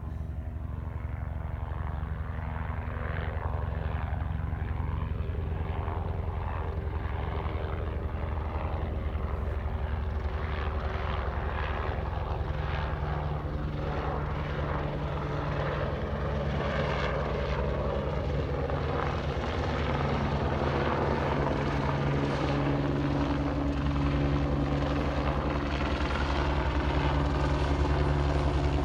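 Helicopter approaching, its rotor chop and engine growing gradually louder.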